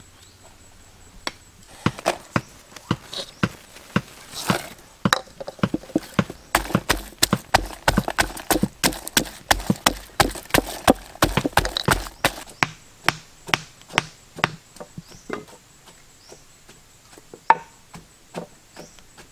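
Repeated sharp knocks of a hammer tapping wooden stakes. Then comes a fast run of heavier thuds, about four to five a second, as a pestle pounds chilies, garlic and shallots in a mortar. A few scattered wooden knocks follow near the end.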